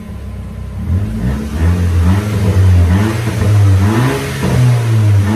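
Audi TT's turbocharged engine revved in several quick blips and settling back, running loud through an exhaust with its rear silencer (back box) cut off. The sound cuts off suddenly near the end.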